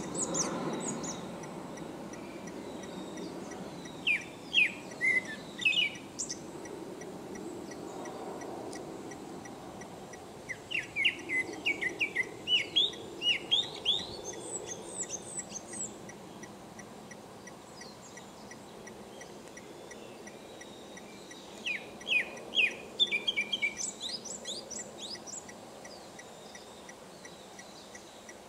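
Male Japanese thrush singing: three bursts of quick, varied whistled phrases, each a few seconds long, separated by pauses of several seconds. A steady low rush of background noise runs underneath.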